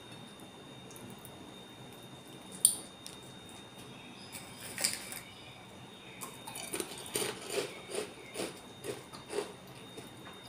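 A mouthful of nasi pecel being chewed close to the microphone, about three chews a second, in the second half. Earlier there is one sharp click, likely cutlery touching the plate, and a faint steady high whine runs underneath.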